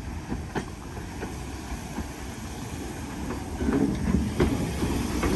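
Heritage railway train backing up: a low rumble that grows louder as it nears, with a few sharp clicks of wheels over rail joints.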